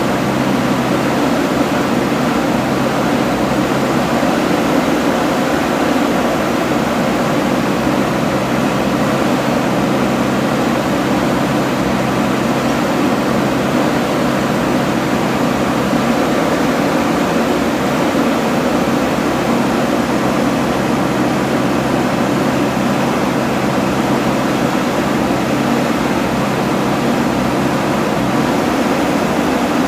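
Steady mechanical hum of motors or an engine running at constant speed, with a few fixed low tones that hold unchanged in pitch and loudness throughout.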